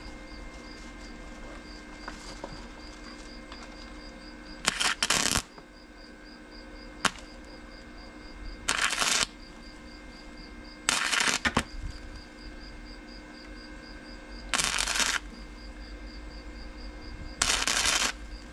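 Flux-core wire-feed welder laying short tack welds on steel angle brackets: five bursts of arc noise, each about half a second long, a few seconds apart.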